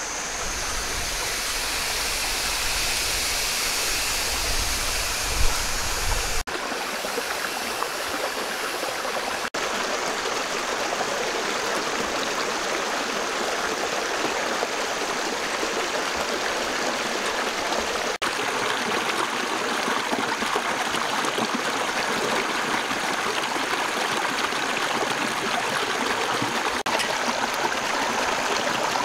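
Shallow rocky stream rushing and gurgling over stones, a steady even wash of water sound, with a low rumble under it for the first several seconds.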